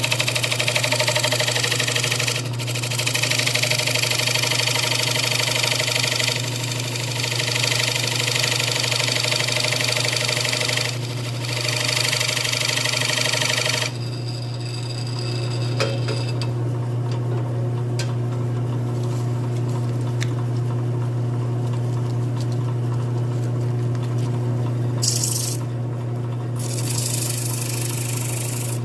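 Wood lathe running with a steady motor hum while wood is worked on the spinning poplar bowl, a loud hiss that breaks off briefly a few times and stops about halfway through, leaving the lathe's hum with light ticks and two short hisses near the end. The turner takes the blank to be slightly warped, making it wobble as it spins.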